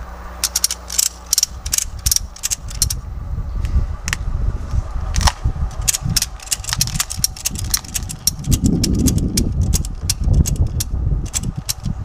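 Ratchet on a wheel-lift tire strap being cranked tight around a car's wheel, clicking over and over in quick irregular runs, with a steady low rumble underneath.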